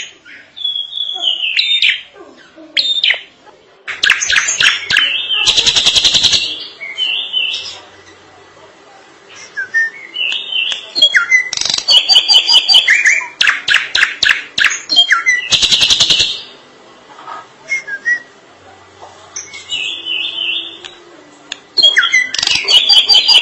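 Drongo singing in bursts of varied whistled notes and rapid, harsh rattling phrases, with short pauses between them.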